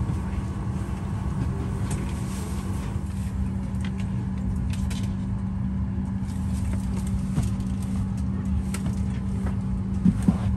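Steady drone of a parked Boeing 737-800's cabin air conditioning, with a constant low hum. Two short sharp knocks come near the end.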